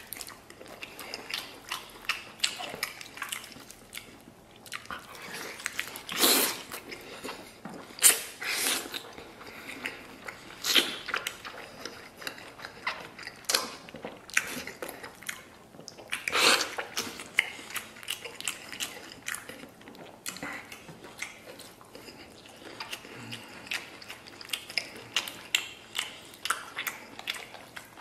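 Someone biting and chewing meat off a spicy braised sheep's head held in both hands: irregular chewing clicks and smacks, with a louder one every two or three seconds.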